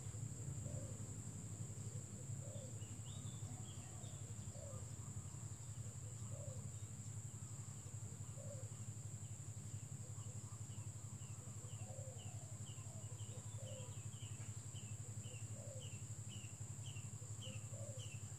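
Ambient insects and birds: a steady high insect buzz over a low steady hum, with short bird chirps every second or two and a quicker run of high, falling chirps about twice a second in the second half.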